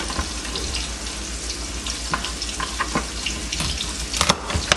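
Onions frying in oil in a pan, a steady sizzling hiss. A few sharp knocks of a chef's knife on a cutting board come through it as a lobster is cut up.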